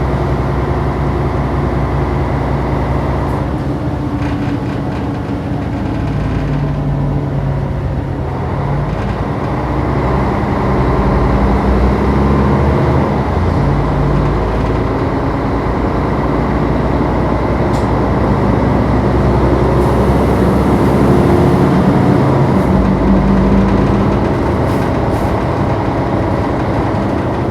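Inside a city bus while it drives: the diesel engine runs under road noise, its pitch rising and falling several times as the bus speeds up and slows. A few light clicks and rattles come in the later part.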